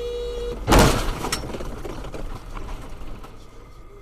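A car horn sounds briefly, then, under a second in, the loud bang of a car collision, followed by a smaller knock and a fading rumble.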